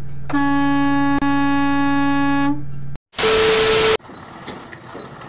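A vehicle horn gives one long steady blast of about two seconds over a low engine hum, sounded as a semi-trailer swings in close. After a brief silence, a short loud burst of hiss with a steady tone follows, then quieter engine and road noise.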